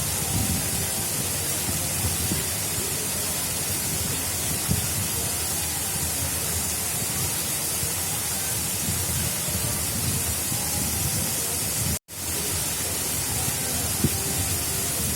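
Water of an artificial river flowing: a steady rushing hiss with uneven low rumbling under it. The sound cuts out for an instant about twelve seconds in, then resumes.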